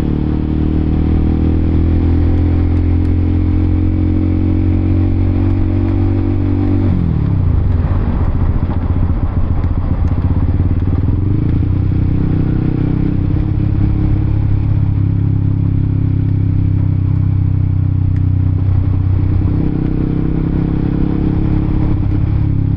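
Honda CBR motorcycle engine running at a steady cruising note while riding; about seven seconds in the pitch drops as the throttle is eased, then it holds a steady lower note for the rest of the ride.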